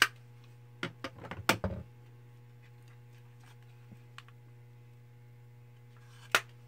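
Sharp clicks and taps of makeup palettes being handled: a loud click at the start, a cluster of clicks about a second in, a couple of faint ticks midway, and another sharp click near the end, over a steady low hum.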